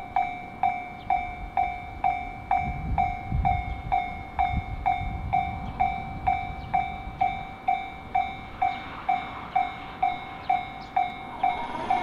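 Japanese railway level crossing's warning bell clanging steadily, about two strokes a second, warning of an approaching train. A low rumble comes in a few seconds in and fades out again.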